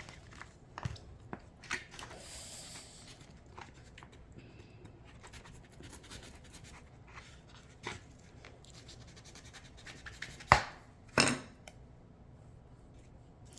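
Knife working through the hard shell of an ice cream bean pod on a plate: quiet scratching and scraping with scattered small clicks, then two sharp snaps near the end as the shell gives way.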